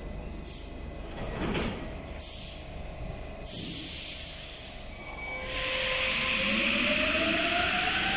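Paris Métro MP14 rubber-tyred train: a steady rumble with a few short bursts of hiss, then a louder run with a motor whine rising in pitch as the train speeds up.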